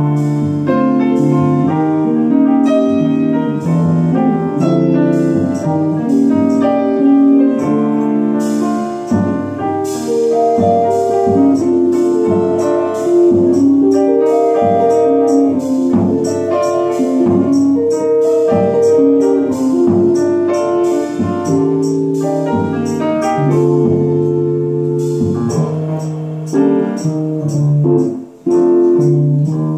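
Live small-group jazz: grand piano playing dense runs and chords over a drum kit's cymbal and drum strokes, with electric guitar, the music briefly thinning out twice near the end.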